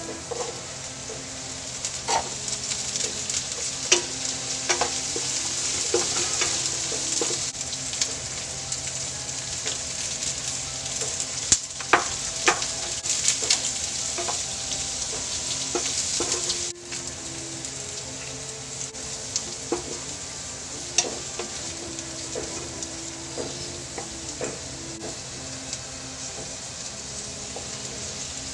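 Vegetables sizzling in a hot nonstick wok while a wooden spatula stirs them, with scattered knocks and scrapes of the spatula against the pan. The sizzling becomes quieter a little past halfway through.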